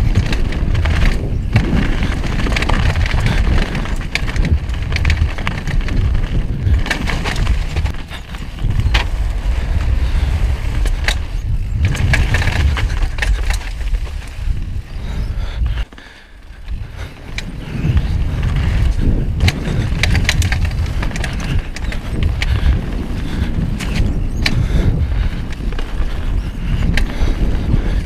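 Mountain bike ridden fast down a gravel bike-park trail: tyres crunching over loose stones, the bike's chain and suspension rattling with frequent sharp knocks, and wind rumbling on the action camera's microphone. The noise drops briefly about halfway through.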